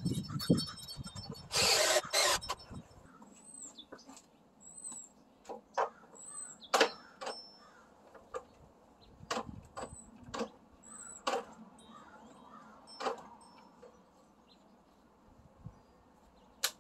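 Cordless drill driving self-tapping screws through a steel blade strip into a wooden beam: one loud run about two seconds in, then a string of short, sharp bursts as the drill is jabbed to tighten the screws. The screws are seating hard, and the drill's torque twists the wrist.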